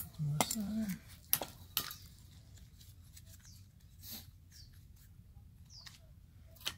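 A few light metallic clinks and knocks of tools, among them a gas torch cylinder, being set down on brick pavers, spread out with pauses between them.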